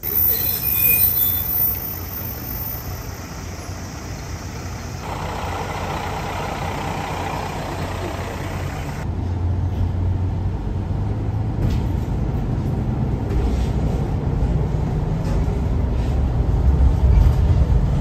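JR Shikoku KiHa 54 diesel railcar arriving, with a high brake squeal in the first couple of seconds. Then, heard from inside the cabin, its diesel engine rumbles as the railcar pulls away, getting louder toward the end.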